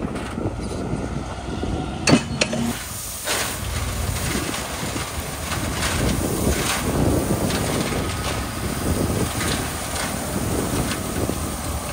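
Heavy road-construction machinery working gravel: engine noise running steadily, with scattered knocks and clatter and one sharp bang about two seconds in.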